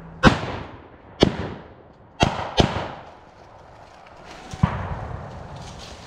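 Five gunshots from blank-firing rifles, unevenly spaced over about four and a half seconds, each followed by a brief echo; the first two are the loudest.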